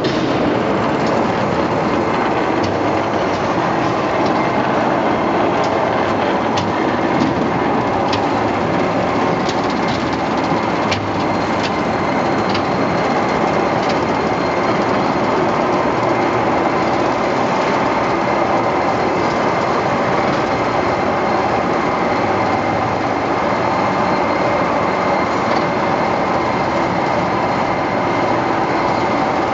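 Railway turntable turning under a static locomotive: a steady mechanical running noise with a faint high whine, and scattered light clicks during the first dozen seconds.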